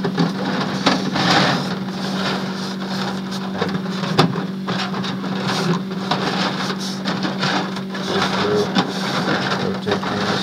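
Quail eggs being rolled and turned by hand across a wire-mesh hardware-cloth tray: a busy clatter of small shells clicking against each other and scraping on the mesh. A steady low hum runs underneath.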